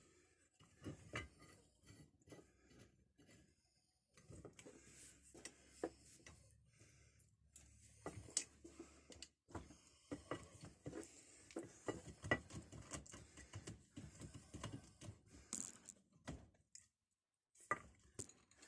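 Faint, irregular metallic clicks, knocks and scrapes as a key is worked and forced in a rusty, seized old padlock, with a few sharper knocks among them.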